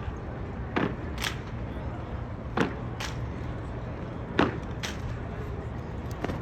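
Drill platoon's sharp knocks and claps from rifle handling and stamping feet, coming in pairs about half a second apart, a pair every second and a half or so, over a steady low background hum.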